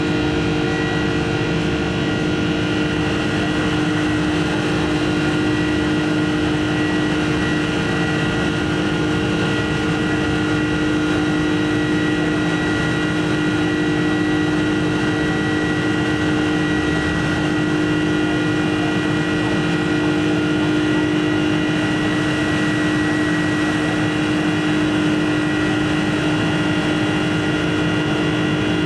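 Cabin noise of a Boeing 747-400 climbing after takeoff, heard from a window seat beside the wing: the steady drone of its General Electric CF6-80C2 turbofans, with several steady whining tones over a rush of airflow.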